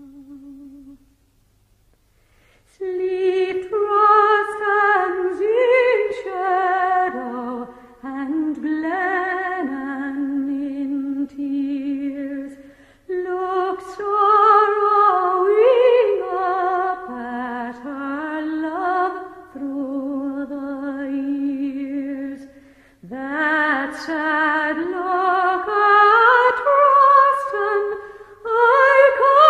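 A solo voice singing a slow melody unaccompanied, with vibrato, in long phrases broken by short breaths, coming in about three seconds in after a brief pause.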